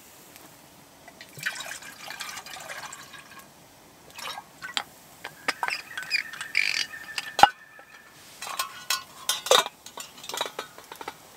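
Water poured into a metal camping kettle in irregular spurts, with metal clinks from the kettle's lid and handle. One sharp clink about seven seconds in is the loudest.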